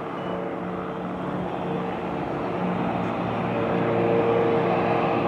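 Aircraft engines running on the airfield: a steady drone with a hum that gets louder about four seconds in.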